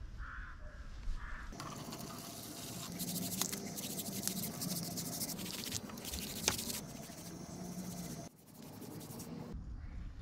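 Brush scrubbing a wet coat onto a rough concrete slab: a dense, scratchy back-and-forth rasp that runs for several seconds and stops abruptly near the end.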